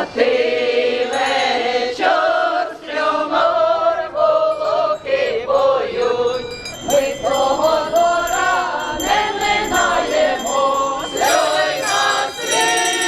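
A choir singing a Christmas carol, with high bell-like ringing joining about halfway through.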